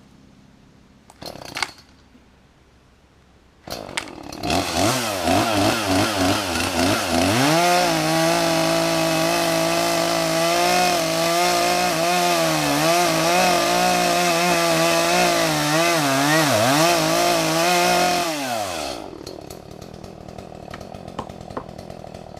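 Gasoline chainsaw starting up about four seconds in and revving a few times, then running at high revs into a tree cut, its pitch dipping now and then under load. About nineteen seconds in it drops back from full throttle.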